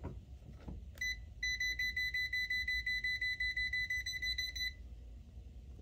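Kaiweets KM602 multimeter's non-contact voltage alarm, held against a live outlet and plugged-in cord, signalling that it senses AC voltage. One short high beep about a second in, then a fast run of beeps for about three seconds.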